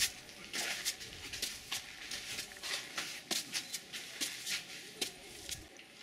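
Footsteps climbing steps: irregular scuffs and taps, about two or three a second.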